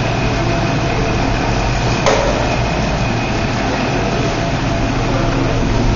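Steady machine-like hum and hiss of room noise, with one sharp knock about two seconds in.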